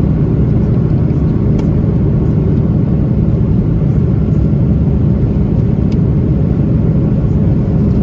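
Inside the cabin of an Airbus A330 jet airliner during takeoff: a loud, steady deep rumble of the engines and airflow, with a few faint clicks of cabin rattles.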